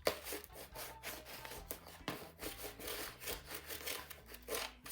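Irregular rough rubbing and scraping strokes, one after another with short gaps, like coarse material being worked by hand.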